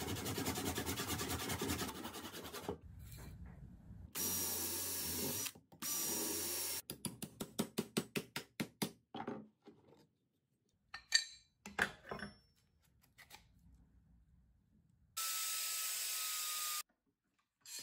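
A handsaw cutting through the old wooden axe handle just below the steel head. Then a power tool runs in two short bursts, a quick run of hammer blows drives a steel punch into the axe eye to knock out the old wood, and a few more knocks follow. Near the end an angle grinder with a wire wheel runs for about a second and a half on the rusty axe head, with a steady whine.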